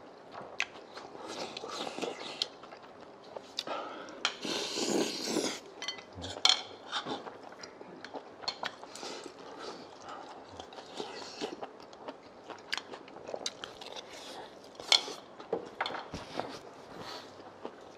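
Eating at a table: chopsticks and spoons clicking and scraping against bowls, with chewing and many short clicks, and a longer rushing noise about four seconds in.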